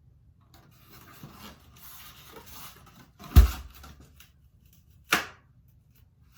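Rubbing and scraping sounds of something being handled, then a loud heavy thump about three and a half seconds in and a sharper knock about five seconds in.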